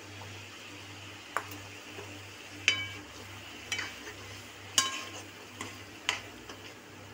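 Metal spoon knocking and scraping against a metal kadhai as green peas are added to a thick tomato gravy and stirred in. There are about six clinks, and two of them, near the middle, are loud and ringing.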